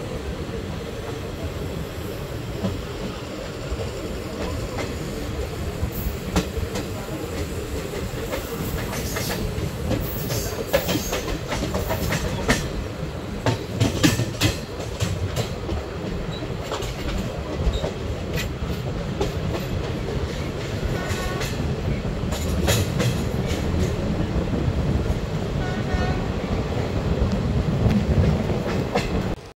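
ICF passenger coach running on the track: a steady low rumble of wheels on rail, with many sharp clicks and clatters as the wheels pass over rail joints.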